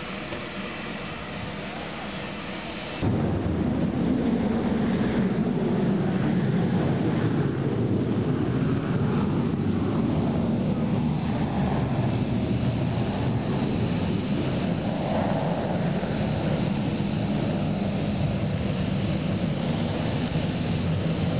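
Steady jet airliner noise at an airport. About three seconds in it jumps to a louder, deeper rumble that holds.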